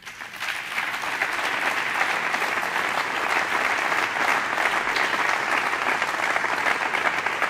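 Audience applauding, steady and sustained, starting at once and holding an even level throughout.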